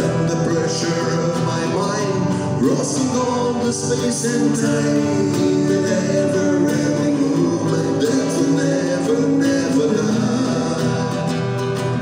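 Two acoustic guitars strumming chords while a man sings a slow melody over them.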